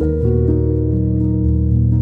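Background music: plucked notes over held chords, at a steady level.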